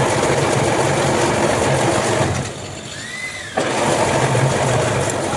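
Workshop machine running steadily with a low hum and a crackly, gritty noise. The noise drops away for about a second near the middle, with a brief high tone rising and falling, then comes back.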